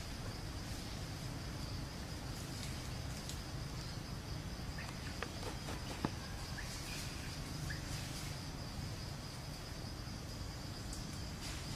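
Outdoor ambience: a steady, high-pitched insect drone over a low rumble, with a few faint short chirps and a single sharp click about six seconds in.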